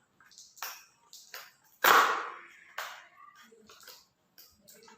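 Handling of the multimeter's packaging: a few short scrapes and clicks, the loudest a sharp rasp about two seconds in.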